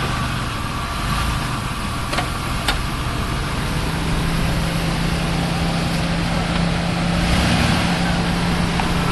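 Car engine running as the car is backed up on a freshly changed wheel; a steady low hum joins in about four seconds in.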